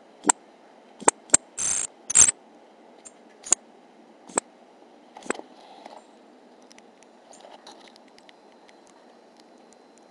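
Pygmy marmosets climbing over the camera and the plastic treat station: a run of sharp taps and knocks through the first half, with two louder brief scrapes about two seconds in, then only faint ticks.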